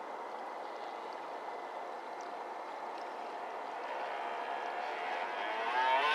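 Steady whirring hiss of small radio-controlled boats running on the water. Near the end a motor whine grows louder and rises in pitch as the nearby RC fishing boat speeds up.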